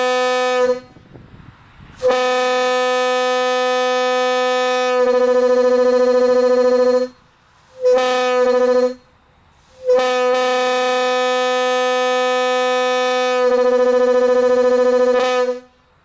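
Bronze Leslie A125 single-chime air horn (A125-247-PB) blown in separate blasts of one steady note. It starts with the end of one blast, then gives a long blast of about five seconds, a short blast of about a second, and a second long blast of about five and a half seconds. Each long blast swells louder partway through.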